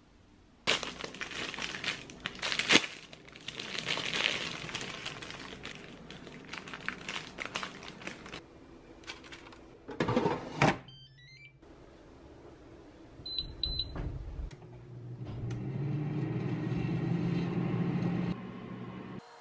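Rustling and handling, then an air fryer basket clunks into place, its control panel gives a quick run of short beeps rising in pitch and then two beeps as it is set, and its fan starts with a steady low hum.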